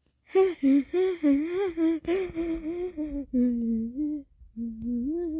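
A high voice humming or whimpering in wavering, drawn-out notes that slide up and down, breathier and brighter for the first couple of seconds and then lower. It breaks off briefly about four seconds in.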